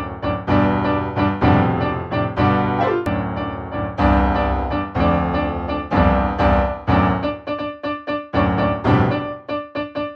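Background music played on piano: a run of struck chords and notes at a steady pulse.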